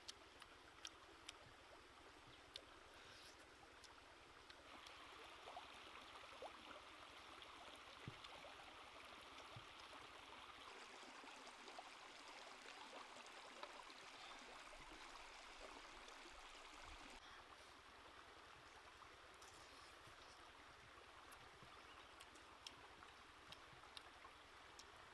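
Faint, steady rush of a stream, with a few soft clicks scattered through.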